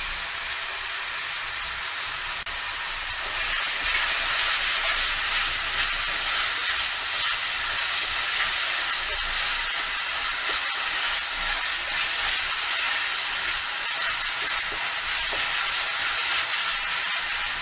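Chopped capsicum, tomatoes and onion sizzling in hot oil in a kadhai as they are stirred with a wooden spatula. A steady sizzle that grows a little louder about three seconds in.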